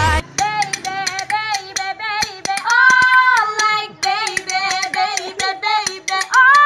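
A high voice singing a melody over sharp hand claps, holding a long note about three seconds in and again near the end.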